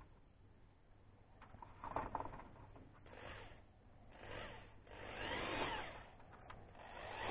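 A tool enlarging the too-small carbon-rod hole in a 3D-printed plastic wing part, working in several short bursts. The loudest comes about two seconds in, and a longer one near the end rises and falls in pitch.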